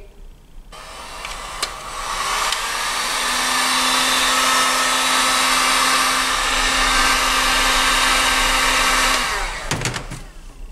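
Electric heat gun blowing hot air onto a moped's engine cases to loosen them for splitting. It comes up about a second in, runs steadily with a motor hum, and winds down near the end, followed by a few light knocks.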